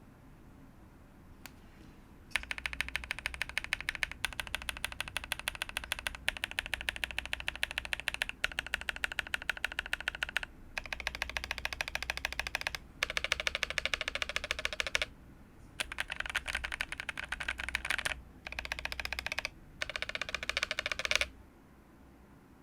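Fast typing on a KBD67 V3 mechanical keyboard fitted with tactile switches: a dense run of key clicks in several spells, with short breaks between them. The typing starts a couple of seconds in and stops shortly before the end.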